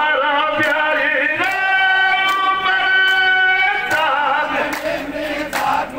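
Men singing a Rajasthani folk song together, holding one long note through the middle before the melody moves on.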